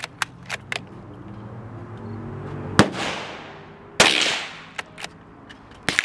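Rifle shots: three loud sharp cracks, about 3 seconds in, a second later, and near the end, each ringing off, from a Marlin 783 bolt-action .22 WMR rifle. Fainter, sharper cracks from other guns on the range come between them.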